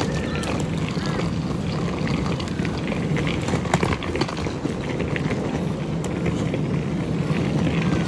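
Wheeled suitcase rolling along a paved path: a steady low rumble with light clicks and rattles from the wheels.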